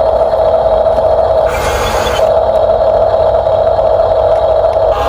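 Small electric motors and gearboxes of radio-controlled model construction machines running with a steady whine over a low rumble. A brief hiss breaks in about a second and a half in.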